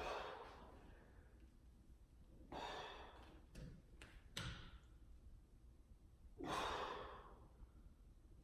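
A man's heavy exertion breathing: four forceful exhalations about two seconds apart, with two faint clicks in the middle.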